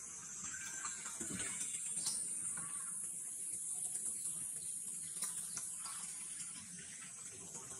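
Steady high-pitched outdoor hiss, with a few faint short chirps and soft clicks scattered through it.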